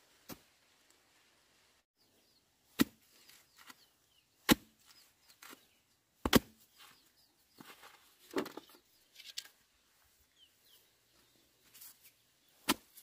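Bamboo fence pole being rammed down into sandy ground: a series of sharp knocks, about six, at uneven intervals. Faint bird chirps sound between the strikes.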